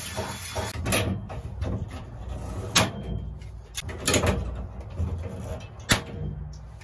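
Hand pop-rivet tool squeezed to set an aluminum pop rivet through a bracket, with several sharp clicks and clacks of the handles and the mandrel, amid tool-handling noise.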